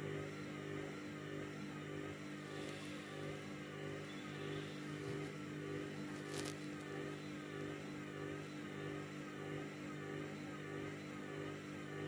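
Candy front-loading washing machine running its drum motor at low speed with a steady hum and a whine that wavers up and down, as it struggles to bring a heavy bedding load up to intermediate spin. There is a brief hiss about six seconds in.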